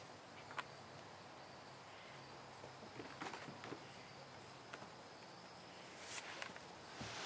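Faint quiet background with a few soft scratches and rustles of kittens scampering over the porch carpet and around a fabric play tunnel, the loudest rustle near the end.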